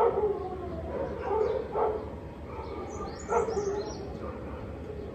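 A dog barking in short yips, several times about a second apart. A bird chirps briefly near the middle.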